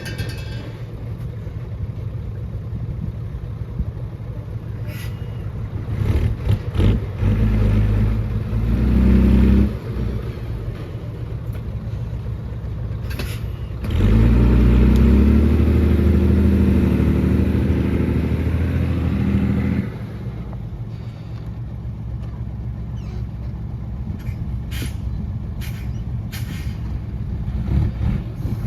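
Heavy diesel engines of earthmoving machinery running steadily, swelling louder for several seconds in the middle, with scattered sharp knocks.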